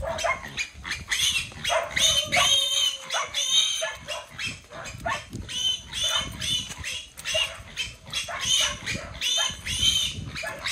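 Young pigs squealing over and over, several high-pitched squeals a second, as they are carried by hand by their legs.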